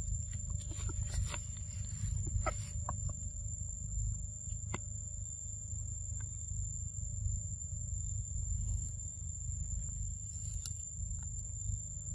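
Forest ambience: a steady low rumble under a continuous high insect whine, with a few light clicks and rustles in the first three seconds and one sharp click about five seconds in.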